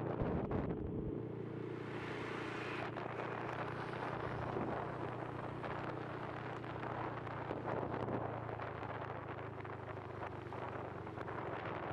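Honda motor scooter's engine running at a steady cruising speed, heard from the rider's helmet, with wind noise on the microphone, gustier around the first second.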